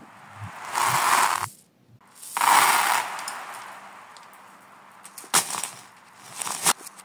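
Small beads and plastic marbles rattling and clattering across a laminate floor, played backwards. The first rattle swells up and stops suddenly, a second one starts sharply and fades, and near the end come a few sharp clicks of plastic toys.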